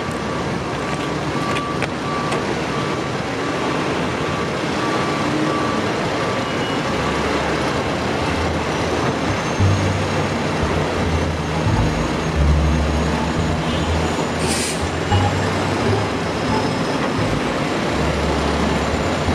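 Steady rushing hum of a gas pump running with outdoor traffic noise. A string of short electronic beeps sounds during the first several seconds, and low bass notes come in about halfway through.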